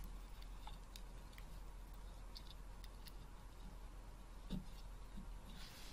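Jumper wires being handled and pushed onto Arduino header pins: faint scattered clicks and small knocks over a steady low hum.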